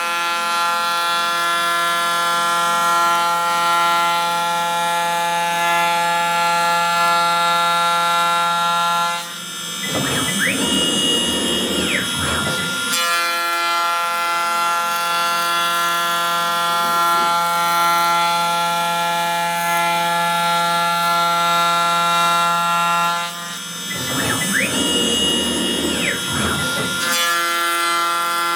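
CNC router running with a steady, high-pitched spindle whine. Twice it gives way for a few seconds to a noisier stretch with a whine that rises, holds and falls.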